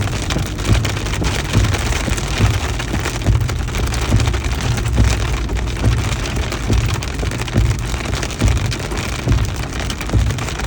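Hail and rain pelting a vehicle in a dense, continuous patter of small hits over a steady low rumble.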